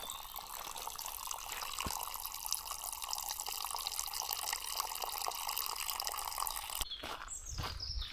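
A forest stream's water running and splashing in a steady rush, cutting off abruptly near the end, after which footsteps on a forest path start.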